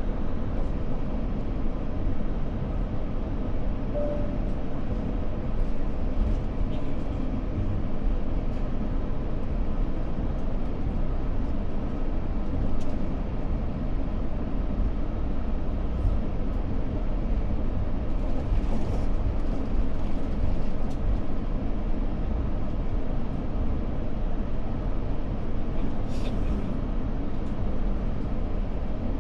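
Steady low rumble of an airliner cabin, the engines and airframe heard from inside the passenger cabin, with a couple of brief soft hisses in the second half.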